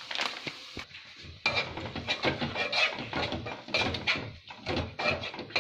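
A metal spoon clinking, knocking and scraping against cookware in quick irregular strokes, with a short metallic ring on some hits, while spice masala is added to the wok. A faint sizzle of frying is heard in the first second.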